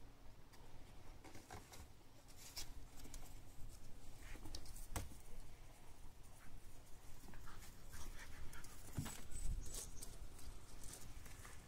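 Entlebucher Mountain Dog puppies scampering and scuffling as they play on grass and wooden steps: scattered light patters, scratches and clicks.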